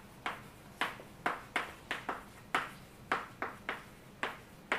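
Chalk writing on a blackboard: a quick, uneven run of short taps and scratches, about three a second, as a line of text is chalked out.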